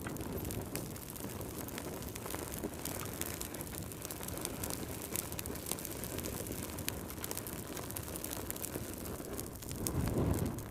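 Fire crackling in a fireplace: a steady low rushing of flames with frequent sharp pops and snaps, and a louder low whoosh near the end.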